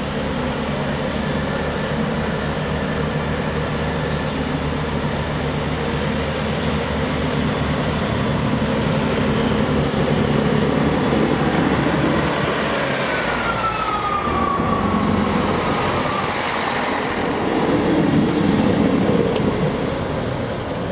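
Class 158 diesel multiple unit's underfloor diesel engines running as the train moves past close by, with a whine that falls in pitch about two-thirds of the way through and the sound growing loudest near the end.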